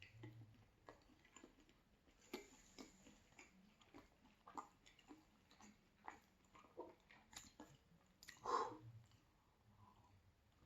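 A person chewing pizza close to the microphone: a run of soft, quick mouth clicks and smacks, with one louder sound about eight and a half seconds in.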